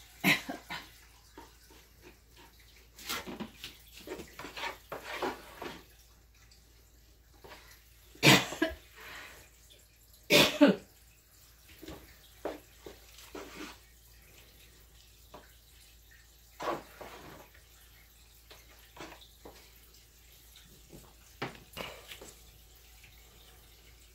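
Kitchen work sounds: scattered knocks and clatters of dishes and utensils with some splashing water, the loudest clatters about 8 and 10 seconds in.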